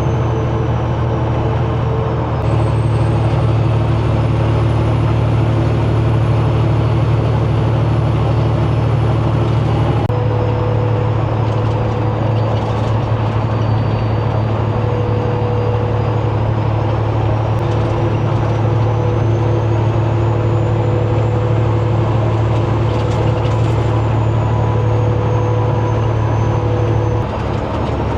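Big-rig diesel engine under way through 8-inch exhaust stacks: a loud, steady low drone with a thin high turbo whistle that drifts slowly up and down in pitch. The engine note shifts slightly about two and ten seconds in and dips briefly near the end.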